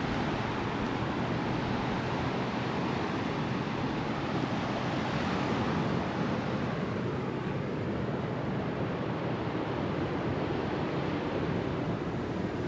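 Steady wash of surf breaking on the beach, mixed with wind buffeting the microphone.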